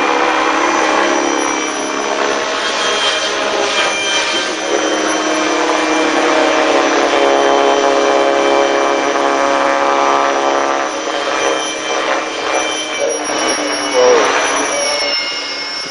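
Align T-Rex 600 electric RC helicopter flying overhead: a steady whine from its electric motor and spinning rotors, dipping slightly in pitch near the end.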